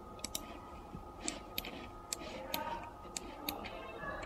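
Computer mouse clicking: about eight short, sharp clicks at uneven intervals, two of them close together near the start, over a faint steady background hum.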